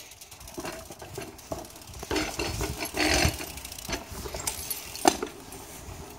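BMX bike being ridden along a path and pavement: tyre rumble with constant rattling and clicking from the bike and the camera, and a sharp knock about five seconds in.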